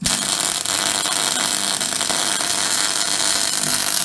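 MIG welding arc tacking laser-cut metal pieces together: a loud, steady hiss that starts abruptly and holds without a break.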